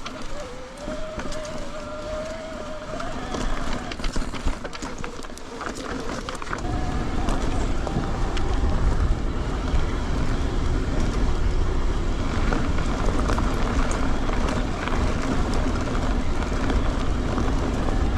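Mountain bike riding a dirt flow trail: tyres running over the ground with a few sharp clicks and rattles from the bike. About six and a half seconds in, as speed picks up, a steady low wind rumble on the microphone sets in and covers most of the sound.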